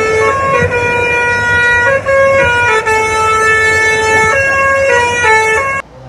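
A truck's telolet musical air horn plays a tune, a string of held chord-like notes that change about every half-second to a second. It cuts off suddenly near the end.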